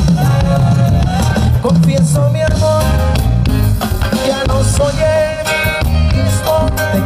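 Cumbia band playing an instrumental passage live, with a bass line, a melody line and percussion on a steady beat.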